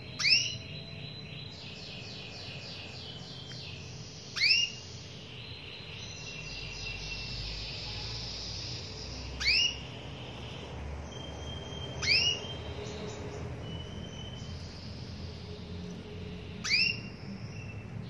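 Female domestic canary giving a loud, sharply rising call note five times, a few seconds apart: the contact call a hen canary uses to call a male. Fainter twittering and short whistled notes come between the calls.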